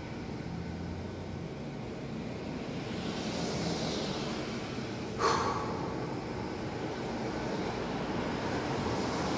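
A man breathing heavily while catching his breath, over a steady low background rumble, with one short sharp sound about five seconds in.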